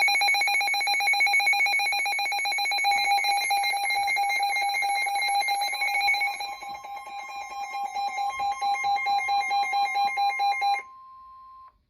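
Emergency Alert System alert tones for a flood warning: a loud electronic alarm of several steady pitches pulsing rapidly, its beat growing sharper about six and a half seconds in. It stops about eleven seconds in, leaving one fainter steady tone that cuts off just before the end.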